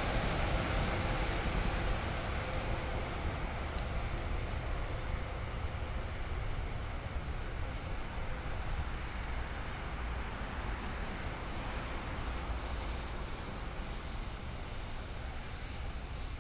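Train noise dying away as an NJ Transit train moves off, fading over the first few seconds into a steady low rumble.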